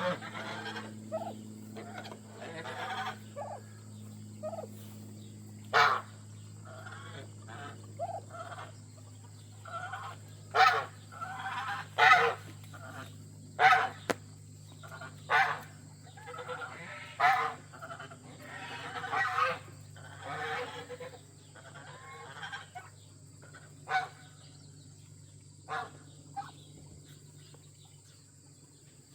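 Geese honking on and off: short loud honks every second or two through the middle, thinning to a few scattered calls near the end. A steady low hum runs underneath.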